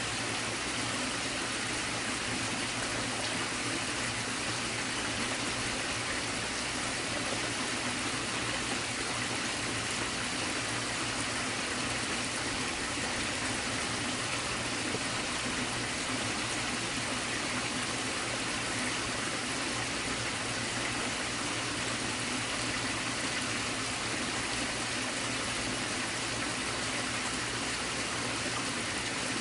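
A creek running: a steady, unbroken rush of flowing water.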